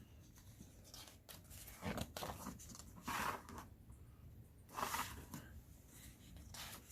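Paper rustling as the pages of a rule book are turned: three soft rustles.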